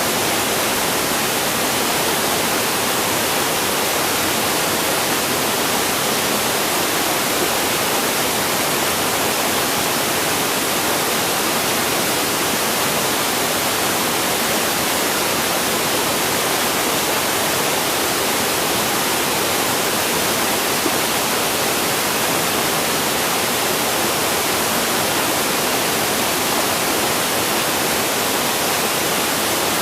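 River water flowing steadily: an even, unbroken rushing hiss with no change in level.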